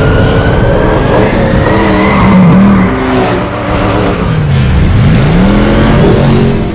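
Car engines running hard in a film car-chase soundtrack. A whine rises over the first few seconds, and an engine note dips and climbs back again about five seconds in, with some tyre squeal.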